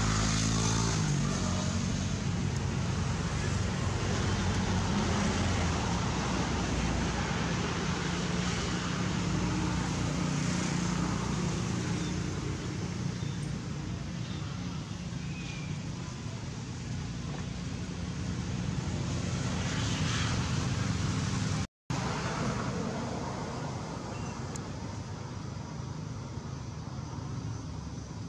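Steady rumble of a running motor vehicle or traffic, heaviest in the low range. The sound cuts out for a split second about three-quarters of the way through.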